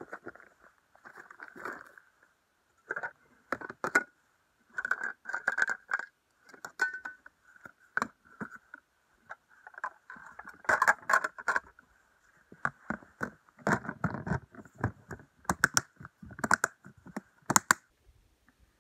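Cookware being handled in a plastic storage bin: frying pans, a glass lid and plates knocking, clinking and scraping against each other in an uneven run of clatter, with heavier knocks about two-thirds of the way through.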